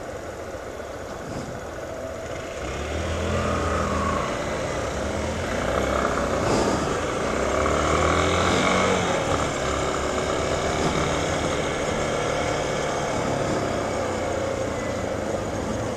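Motorcycle engine pulling away from a standstill and accelerating, getting louder about two and a half seconds in, its note shifting several times as it speeds up, over steady wind and road noise.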